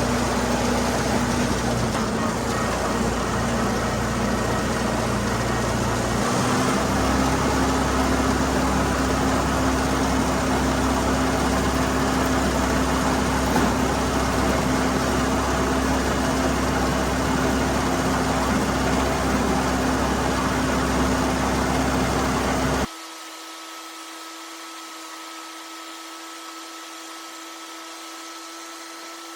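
Tractor engine running steadily under load while pulling a haybine, with a steady low drone that shifts slightly about six seconds in. About three-quarters of the way through, it cuts abruptly to a much quieter, steady hum.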